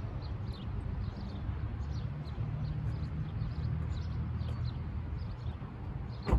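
Small birds chirping over a steady low outdoor rumble, with one sharp click near the end.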